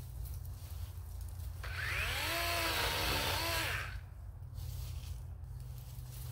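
DeWalt 20V XR cordless chainsaw's electric motor triggered once, whining up to speed, running for about two seconds and winding down.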